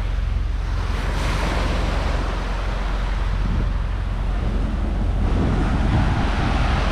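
Wind buffeting the microphone over a steady rush of sea and waves.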